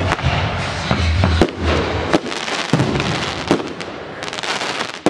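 Fireworks display going off: sharp bangs at irregular intervals over a dense crackling, with a low rumble underneath that stops about a second and a half in.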